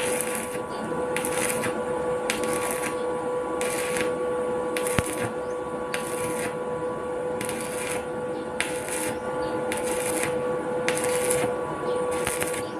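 Electric arc welding in short bursts: the arc sizzles and crackles for about half a second at a time, roughly once a second, over a steady hum.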